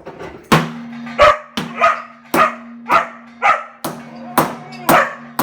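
Dog barking over and over, about two barks a second, over a steady low hum.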